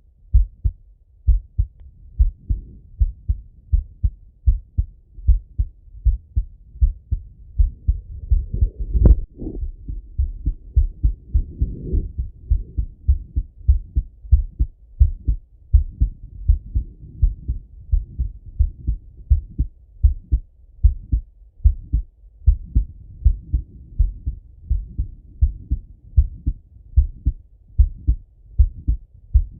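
A man's heartbeat heard through a stethoscope chest piece: a steady run of deep lub-dub thumps, with soft breath sounds swelling and fading behind them. There is one sharper knock about nine seconds in.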